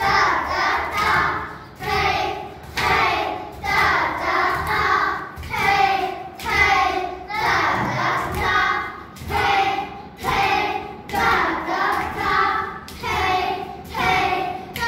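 A group of children chanting Kathak tatkaar syllables in unison, in an even rhythm of about one and a half beats a second, with thuds of bare feet stamping the floor in time.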